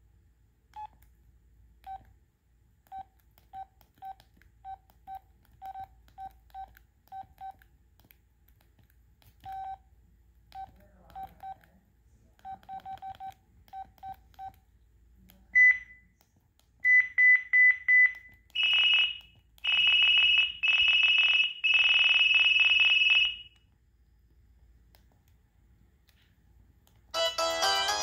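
LG VX9400 cell phone sounding through its small speaker. For the first half it gives single short beeps at an uneven pace. Then it plays preloaded ringtones: a quick run of high beeps, then a loud pulsing electronic ring in four bursts. Near the end a melodic ringtone starts.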